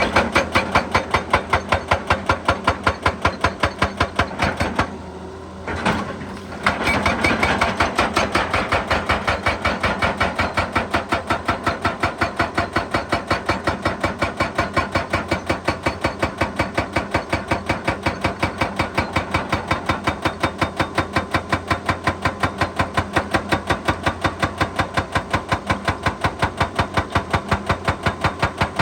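Excavator-mounted hydraulic percussion hammer striking rock in a rapid, steady train of blows. The blows stop briefly about four and a half seconds in, then start again and run on evenly.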